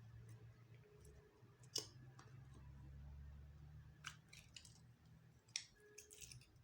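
Slime being mixed by hand: a few faint, scattered sticky clicks and pops over a low steady hum.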